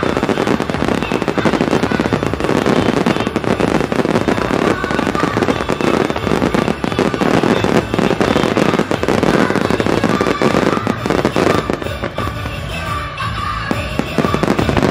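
Aerial fireworks bursting and crackling in a dense, continuous barrage over music, thinning somewhat about twelve seconds in.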